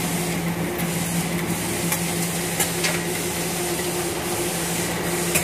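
Glass sorting machine running with a steady hum and hiss, with a few sharp clicks scattered through.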